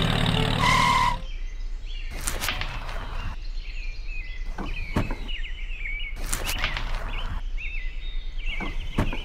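Small birds chirping and twittering in short repeated calls over a low steady hum. A louder sound with a held tone cuts off about a second in.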